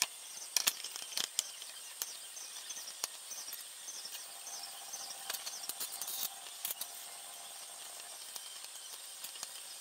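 Small metal clicks and knocks from a ball screw's bearing support block being handled and fitted against an aluminium extrusion. A few sharp clicks come in the first second and a half, then lighter ones, over a steady high hiss.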